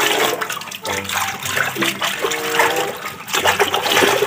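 Water sloshing and splashing as a hand scrubs a plastic toy figure in a basin of soapy water. Short melodic notes of background music play over it.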